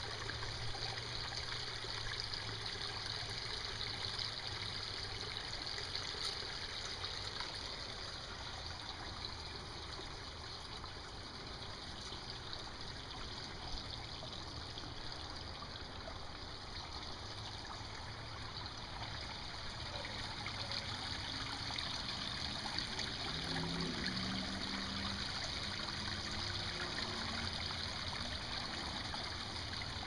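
Water trickling and splashing over granite boulders in a small garden stream, a steady running-water sound that dips a little in the middle and grows again towards the end.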